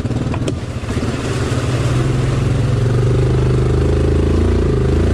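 ATV engine running under throttle as the quad drives through a water-filled trail rut; the engine note climbs a little about halfway through and then holds steady.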